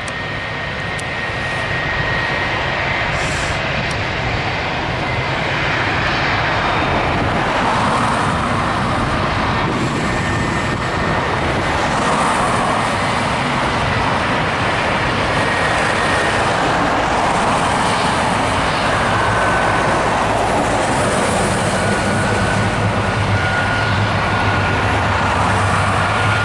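CFM56 turbofan engines of an Airbus A320 running at low power, a steady rushing noise with a high thin whine. Near the end a low hum grows underneath.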